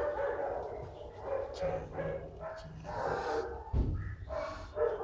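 Dogs barking over and over in short, closely spaced barks, with one dull thump near four seconds in.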